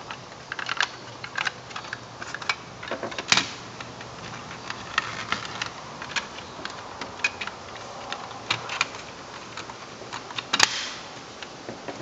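Irregular clicks and taps of the plastic parts of a smoke alarm being handled and snapped together, with one sharper click near the end.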